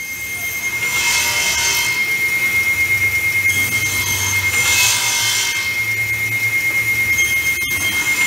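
Pass-through double-end trimming saw for pallet boards running, its circular saws whining steadily over a motor hum. A louder rasp rises about a second in and again around the middle as boards are cut to length at both ends.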